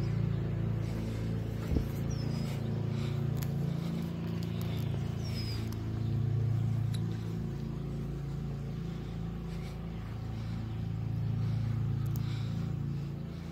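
A car engine running with a steady low hum as the vehicle rolls slowly. A few faint high chirps and a single sharp knock about two seconds in.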